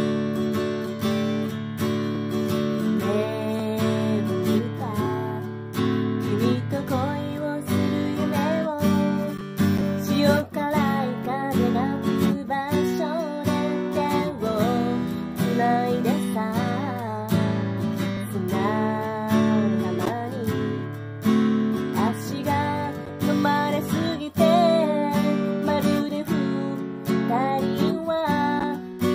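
Acoustic guitar strummed in steady chords, with a female voice singing a melody over it from about six seconds in.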